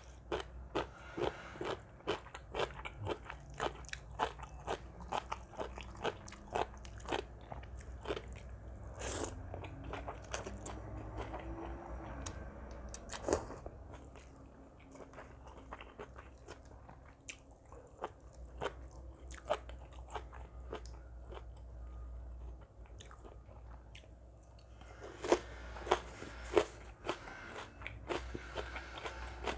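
Someone eating seafood papaya salad: crunching bites and chewing, with many sharp crunches in the first half, softer chewing through the middle, and a few loud crunches again near the end.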